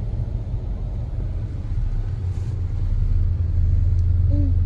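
Steady low rumble of a vehicle riding through city traffic, engine and road noise, growing louder about three and a half seconds in.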